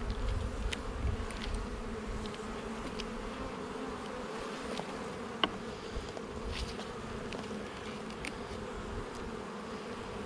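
Honeybees from an open hive buzzing in a steady hum, with a few light clicks.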